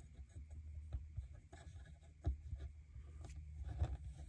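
Small plastic LEGO pieces clicking and scraping faintly as they are handled and fitted onto a plate, with a few sharper clicks, over a steady low hum.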